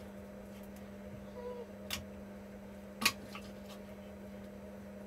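Steady low hum of the room, with two sharp clicks about a second apart, around two and three seconds in, as cookie dough is handled and portioned at the kitchen worktop.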